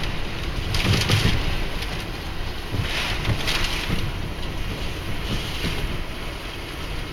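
Typhoon-force wind and driving rain rushing against a window, swelling in gusts about a second in, around three seconds in and again near the end, with low buffeting thumps as the gusts hit.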